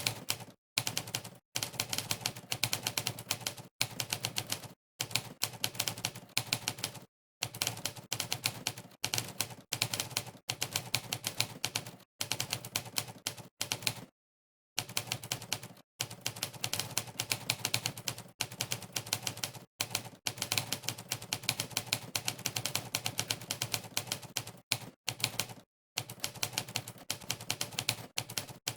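Monkeytype's typewriter keystroke sound effect, one sharp typewriter-key clack per key pressed, in fast runs with brief silent pauses between bursts of typing; the longest pause comes about halfway through.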